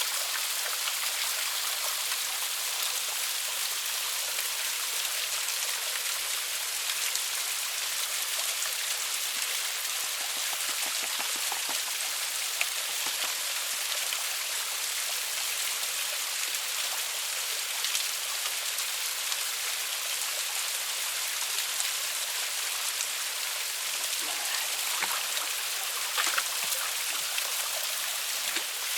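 Small waterfall on a mountain stream rushing steadily, a constant bright hiss of falling water, with a few faint splashes or knocks now and then.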